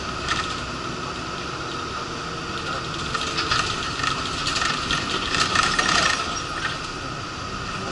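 Inside a moving shuttle bus: steady engine and road noise, with bursts of rattling and clattering in the middle few seconds.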